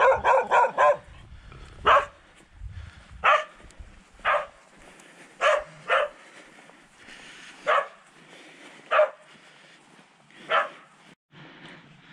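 Farm watchdog barking at a passer-by: a quick run of barks at the start, then single barks about every second or so. It is a territorial warning to keep away from the house.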